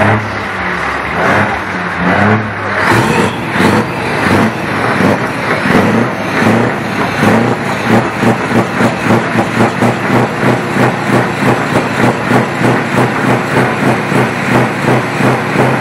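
Scania truck's diesel engine being revved unevenly, then settling into a regular pulsing of about two beats a second, heard close to its side-skirt exhaust outlet.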